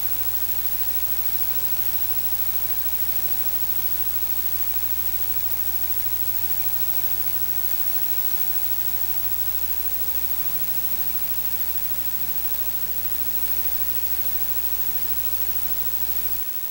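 Steady low drone of the natural gas compressor station's engines, with a constant hiss over it. The low drone cuts off abruptly near the end.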